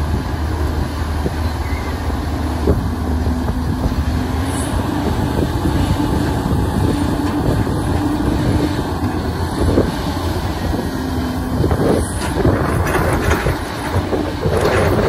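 Caterpillar hydraulic excavator's diesel engine running steadily under load as it loads a dump truck. Short knocks and clattering come through it, mostly about twelve to fourteen seconds in, as mud and debris drop into the steel truck bed.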